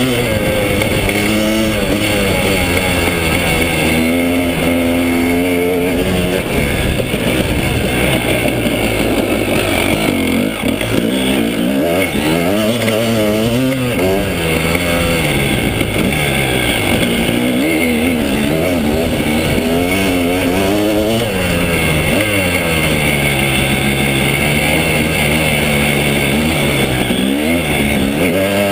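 2009 KTM 300 EXC Sixdays enduro motorcycle's two-stroke engine revving up and down over and over as the throttle is opened and closed while riding, heard close up from a camera on the handlebars.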